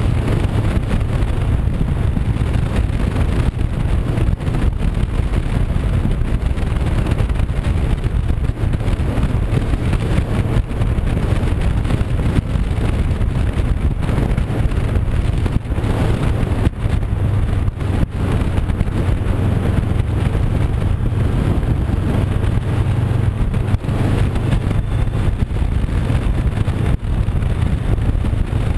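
Honda CB500X's parallel-twin engine running steadily at cruising speed, with wind rushing over the microphone and road noise.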